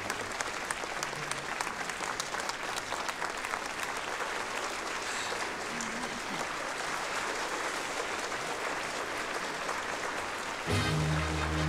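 A large crowd applauding, many hands clapping steadily together. Near the end, music with sustained tones comes in over it.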